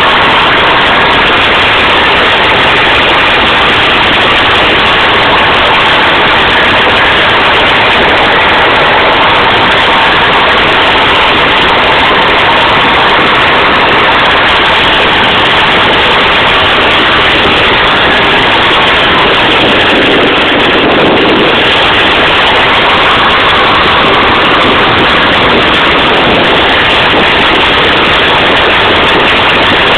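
SKOT (OT-64) wheeled armoured personnel carrier's Tatra V8 diesel running steadily under way, terribly loud, heard from the outside of the hull. The noise is dense and unbroken, shifting slightly in tone about two-thirds of the way through.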